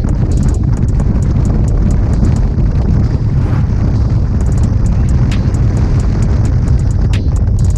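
Wind rushing over the microphone of a moving Yamaha XMAX 250 scooter, with its single-cylinder engine running steadily underneath.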